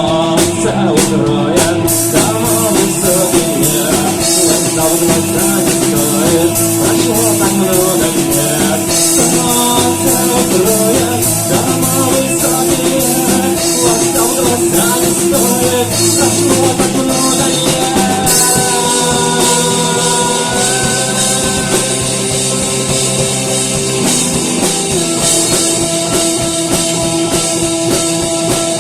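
Rock music with a drum kit and guitar, playing steadily throughout.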